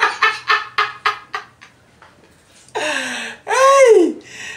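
A man laughing in a quick run of short ha's, then, after a brief pause, a long drawn-out vocal exclamation that rises and falls in pitch.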